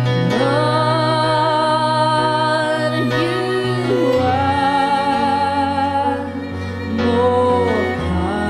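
Slow worship music: a singer holds long notes with vibrato, three in turn, over a sustained instrumental backing.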